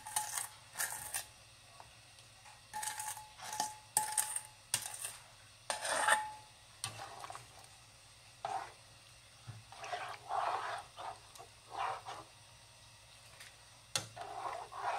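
A spoon clinking and scraping against a bowl and a nonstick frying pan as spicy sauce is scraped out and stirred into the broth. Separate short clinks, some ringing briefly, come in the first half, followed by longer scraping and stirring strokes.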